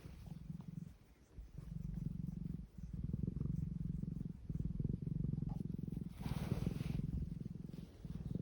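Domestic cat purring close up, a low rumble that pulses in breath-length phrases with short breaks between them, and a brief soft hissy noise about six seconds in.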